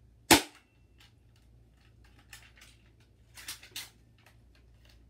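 A manually cocked BB pistol fires once about a third of a second in: a single sharp crack, the loudest thing here. A few quieter clicks follow around three and a half seconds in as the gun is handled.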